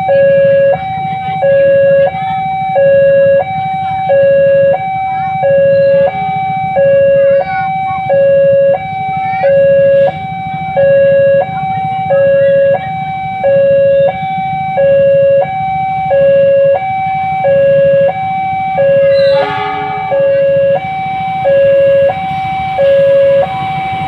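Railway level-crossing warning alarm sounding a steady electronic two-tone signal, a low note and a higher note alternating about every three-quarters of a second, the warning that a train is approaching. A low steady rumble runs underneath.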